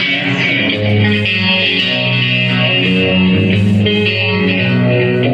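Live rock band playing a song, with sustained electric guitar notes over a moving bass line.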